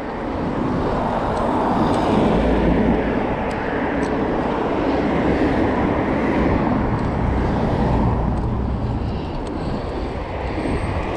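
Steady rushing of wind and road noise on the microphone of a pedal bike rider cycling along a street, swelling and easing a little.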